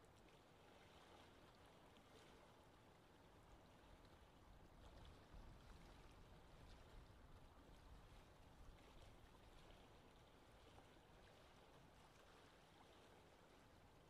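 Faint lake wind ambience: a soft, steady wash of wind with light water lapping, the low wind rumble swelling a little in the middle.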